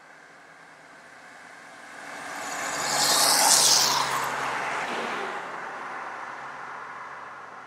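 A vehicle passing by: a rushing noise that swells to its loudest about three and a half seconds in, then fades slowly away.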